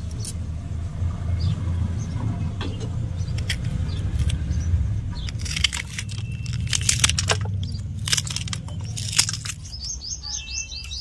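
A knife cuts a capsicum: a string of sharp cuts and taps, thickest about halfway through, over a steady low rumble. Near the end a bird chirps in a quick run of short notes.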